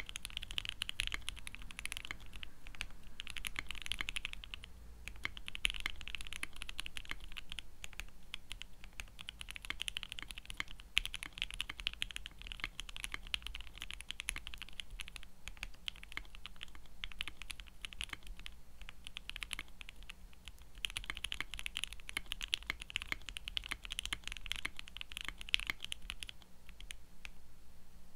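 Fast continuous typing on a Portico mechanical keyboard fitted with lubed and filmed Everglide Water King linear switches and ePBT keycaps, with no silicone dampening in the case: a steady stream of keystrokes that eases off a little in places.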